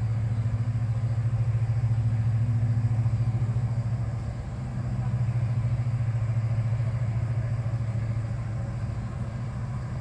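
Deep, steady diesel drone of a tug-barge passing on the river, a low hum with a fast throb. It eases briefly about four seconds in.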